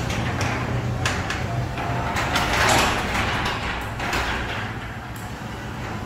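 Genie garage door opener closing a sectional garage door: a steady motor hum with irregular clicks and rattles from the door panels moving down the tracks.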